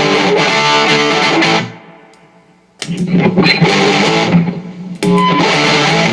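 Electric guitar played through a Fulltone GT500 overdrive/distortion pedal, its repaired footswitch now working. Distorted chords ring out, stop for about a second, then start again and carry on.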